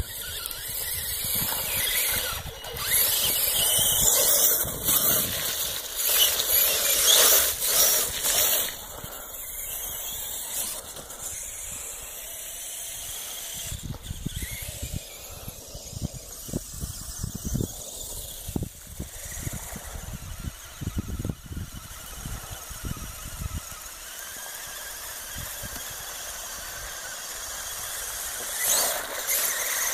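Tamiya Clodbuster RC monster truck's twin electric motors and gearboxes whining as it drives through mud and water. Loudest in the first several seconds, fainter in the middle, and rising again near the end.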